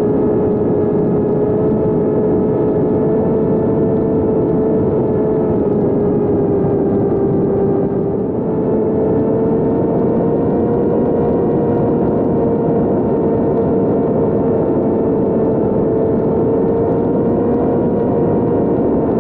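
The HeeWing F1 flying wing's electric motor and propeller whining steadily in cruise flight, recorded on board, with a rush of air beneath the tone. About eight seconds in the pitch sags and the sound dips briefly, then it settles at a slightly higher pitch.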